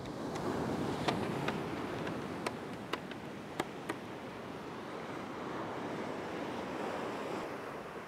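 Sea surf washing onto a sandy beach, swelling and easing off, with a little wind. About eight short sharp clicks fall irregularly in the first half.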